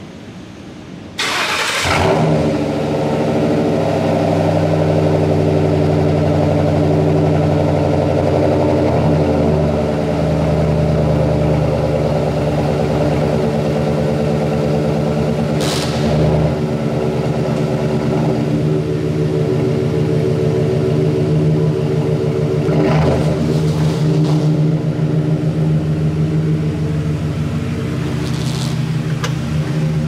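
Ford Crown Victoria's 4.6-litre V8 starting about a second in, then idling steadily. Two brief sharper noises rise over the idle, about halfway through and again later.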